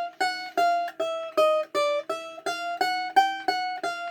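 Domra played with a plectrum in single plucked strokes (pizzicato), about three notes a second. It is a finger exercise using all four fingers, the notes stepping up and down and climbing near the end over a lower ringing note.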